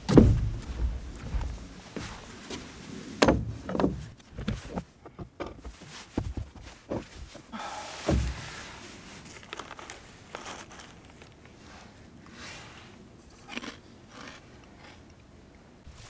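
Irregular thumps and knocks with footsteps, the heaviest at the very start and a few seconds in, and a brief rustle about eight seconds in.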